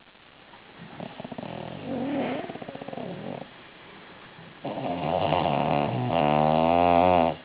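A sleeping bulldog snoring: a quieter rattling breath about a second in, then a long, loud, droning snore in the second half that breaks briefly in the middle.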